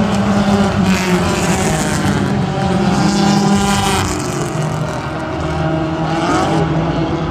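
Front-wheel-drive class race cars running around a paved short oval, several engines at once, their pitch rising and falling as the cars pass. One engine climbs in pitch near the end.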